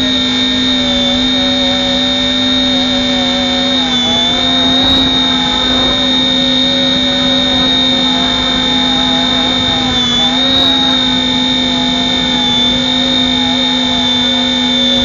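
RC helicopter in flight: a steady high whine from the motor and rotor over a lower hum, with the pitch dipping briefly about four seconds in and again near ten seconds as the helicopter corrects against wind gusts. A low rumble of wind sits underneath.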